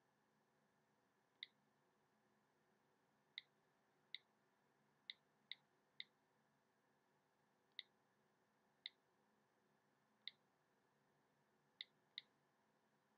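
iPhone keyboard click sounds from the phone's speaker, one short click for each key entered during flick typing. There are about eleven clicks at irregular intervals, some in quick pairs, over near silence.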